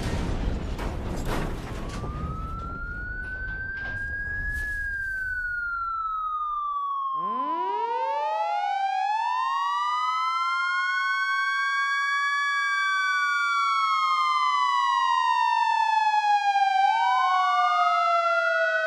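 The rumble of a large explosion dies away over the first few seconds, while a siren starts to wail about two seconds in. Around seven seconds in, several more sirens wind up and wail together in slow rising and falling pitches.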